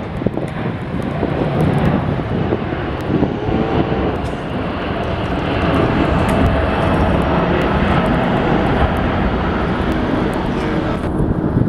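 Jet airliner's engines passing close, a loud steady rush of noise with faint whining tones that slide in pitch, swelling a little about halfway through.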